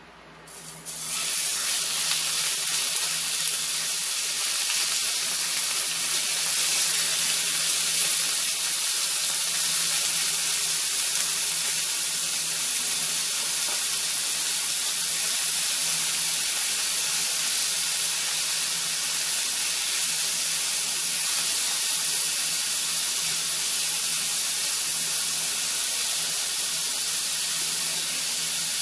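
Ground pork sizzling in a hot frying pan. The steady hiss starts suddenly about a second in as the meat goes into the pan, then holds.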